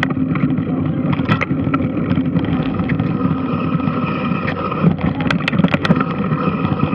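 A very large washing machine running, its drum churning water with a steady rumble and scattered sharp clicks and knocks.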